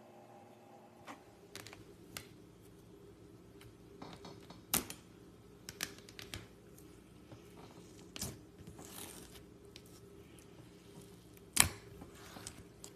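Clear glitter slime being worked by hand, giving scattered sticky clicks and small pops, two sharper pops about five and eleven seconds in, over a faint steady hum.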